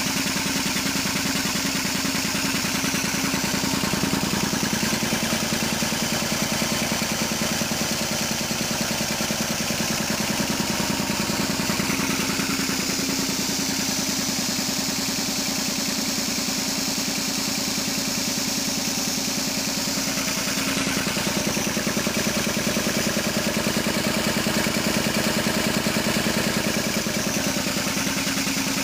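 LeRoi Dresser Series 800 three-cylinder, two-stage reciprocating air compressor pump running steadily, belt-driven by a 10 horsepower electric motor, with a rapid, even pulsing from the pistons over a steady hum.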